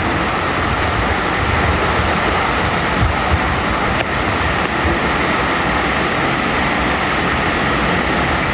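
Hurricane wind blowing hard, a steady loud rushing noise with low rumbling buffets on the microphone.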